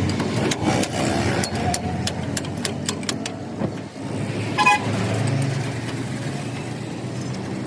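Motor vehicles running on a busy road, with sharp metallic clinks through the first few seconds and a short horn toot a little after the middle.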